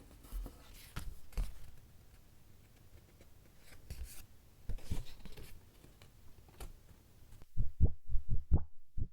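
A scratchboard being scraped with a stylus in short scratchy strokes and clicks. About seven and a half seconds in, a quick run of loud, dull low thumps takes over and is the loudest part.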